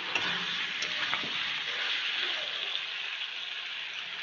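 Chicken, potato and raw papaya pieces sizzling steadily in oil in a metal kadai, with a spatula stirring them and giving a few light scrapes in the first second or so. The sizzle eases off a little near the end.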